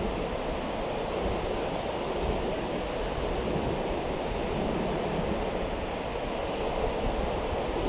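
Steady wash of surf with wind noise on the microphone.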